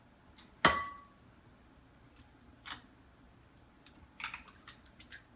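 An egg knocked against the rim of a mixing bowl: one sharp ringing clink, followed by a faint tap and a run of small clicks near the end as the shell is broken open.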